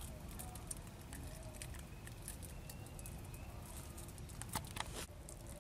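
Outdoor field ambience: a steady low rumble with scattered crackling clicks, and two sharper clicks near the end.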